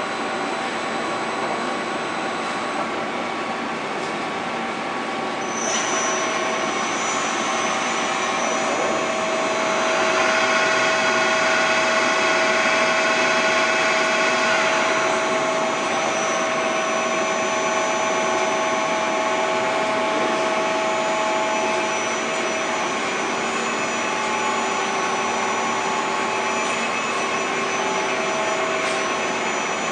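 Youji YV1600 CNC vertical boring mill running a program: a steady machine whine with several steady tones. About six seconds in the pitch changes and new tones join, and from about ten to fifteen seconds in more tones sound above them.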